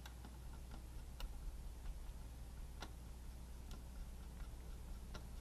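A few light, irregularly spaced clicks and ticks from handling a plastic model car body while wiping it with a cloth, over a steady low hum.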